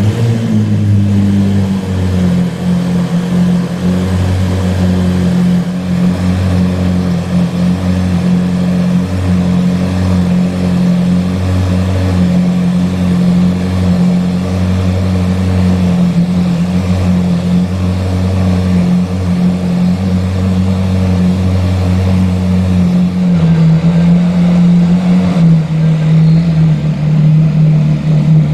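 Ferrari 458 Italia's 4.5-litre V8 breathing through an Fi aftermarket exhaust, idling steadily at a raised idle just after start-up. About 23 seconds in the idle drops a notch as it settles.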